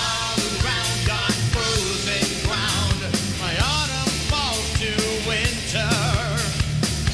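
Rock music with a singing voice over a steady drum beat.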